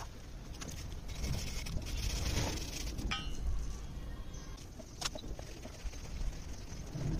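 Stiff-bristled chain brush scrubbing a grimy motorcycle drive chain wet with chain cleaner, with a scratchy rasp and a few sharp clicks.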